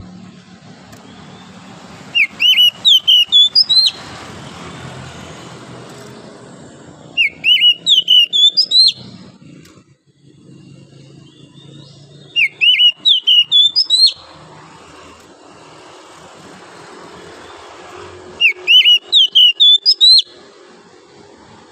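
Oriental magpie-robin (kacer) singing: four loud phrases of quick, rising whistled notes, each lasting about two seconds, coming roughly every five seconds.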